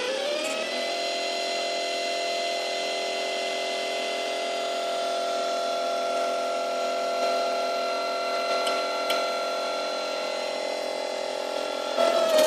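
Stepper motors of a Zmorph 2.0 S 3D printer whining as the print head moves while printing, a steady hum of several tones during a long straight move. The pitch glides up about a second in as the head speeds up, and falls near the end as it slows and turns, where it grows louder with a few clicks.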